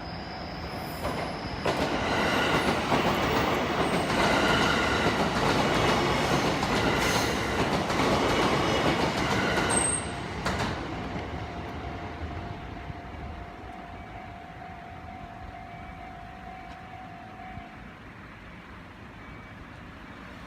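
An electric train on the JR Echigo Line passing through a level crossing, loud from about 2 to 10 seconds in, with wheels clattering over the rails. A steady warning tone from the crossing alarm sounds before and after the passage and stops near the end.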